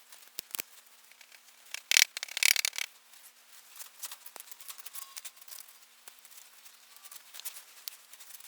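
Molding sand being packed and worked in a casting flask: scattered sharp clicks, a loud gritty scraping clatter about two seconds in, then light crackling and ticking.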